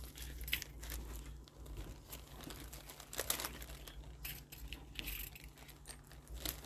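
Thin plastic bags crinkling and rustling as they are handled, with scattered short crackles.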